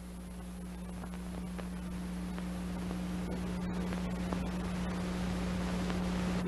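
A steady low hum with hiss and scattered faint clicks and crackles, slowly growing louder: the noise of an old film soundtrack under the opening credits.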